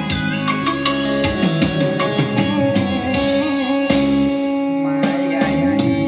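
Music led by a plucked string instrument, with quick plucked notes over sustained tones.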